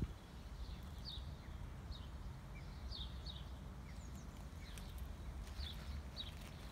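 Small bird giving short high chirps, often in pairs, every second or so, over a steady low outdoor rumble.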